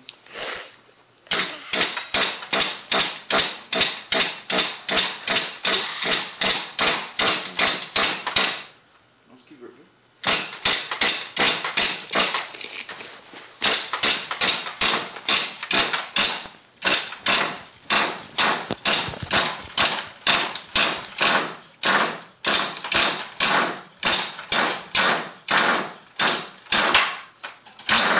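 The recoil pull starter of a Kyosho MP9 TKI3 nitro buggy, yanked in quick short pulls about two to three times a second, each pull turning the small glow engine over. The engine does not catch, and the pulls stop for about a second and a half partway through.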